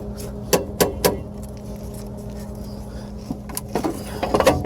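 Hand work on a makeup air unit: three quick metallic knocks about half a second in, then a click and a burst of clattering near the end, over a steady low hum.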